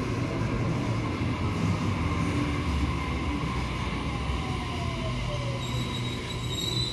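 Sydney Trains Tangara double-deck electric train pulling into the platform and slowing. A steady wheel and motor rumble runs under a motor whine that falls in pitch as it brakes, and a faint high wheel squeal begins near the end.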